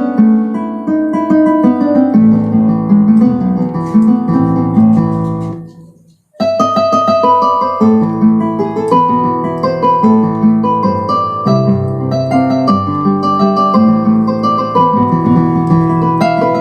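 Yamaha PSR-EW310 portable keyboard playing its guitar voice, chords with a melody over a bass line. It stops briefly about six seconds in, then resumes.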